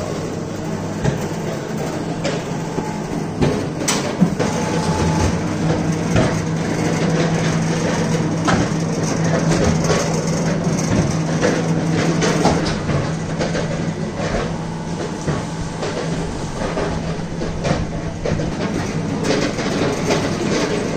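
Brick-making plant machinery running steadily: a continuous low mechanical hum with irregular clanks and knocks throughout.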